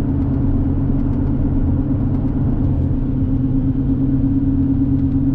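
Pickup truck pulling a loaded hay trailer, heard from inside the closed cab at road speed: a steady drone of engine and road noise.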